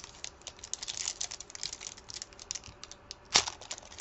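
Wrapper of a 2008 Select NRL trading card pack crackling and tearing in a quick run of small clicks as it is pulled open by hand, with one sharper crack near the end.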